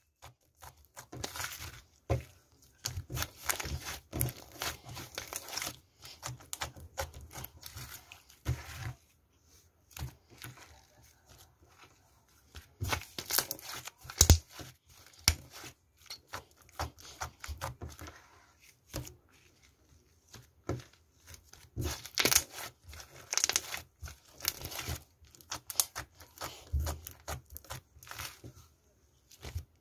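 Slime being squeezed and stretched by hand: irregular runs of small sticky clicks and crackles in bursts, with short pauses between.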